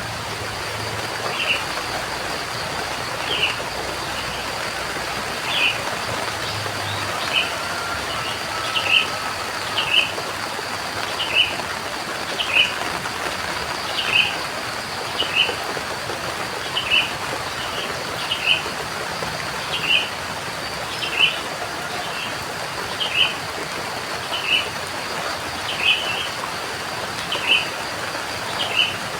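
Steady rain with a bird repeating one short, high call over and over, about once every second to second and a half. A faint steady high-pitched hum runs underneath.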